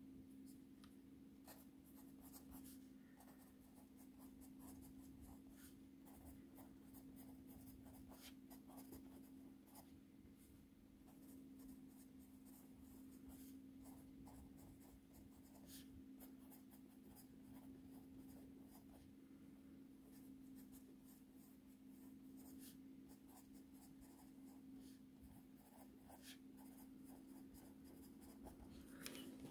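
Zebra Z-Grip Plus mechanical pencil with 0.7 mm lead writing on paper: faint, irregular scratching strokes over a low steady hum.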